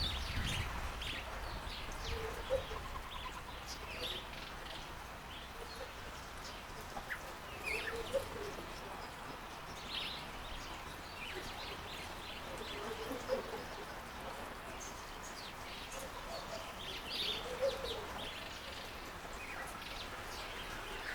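Wild garden birds chirping in short, scattered calls, with lower calls repeating every few seconds, over the steady trickle of a bird bath fountain.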